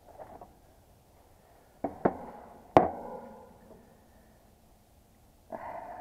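Tools and a plastic parts box being handled on the top of the unit: two knocks about two seconds in, then a louder, sharp knock that rings briefly, and a short rustle near the end.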